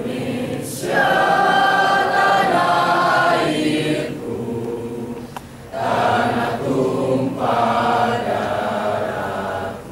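Mixed student choir singing a song under a conductor, in two sustained phrases with a short break for breath about four seconds in.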